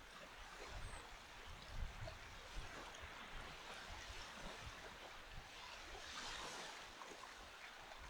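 Small waves washing gently onto a sandy beach, faint and steady, with a wave swelling louder about six seconds in. An uneven low rumble runs underneath.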